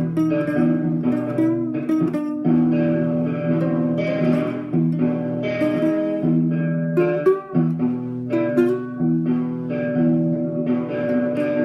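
Guitar being played, picked chords and notes ringing on and changing every second or so.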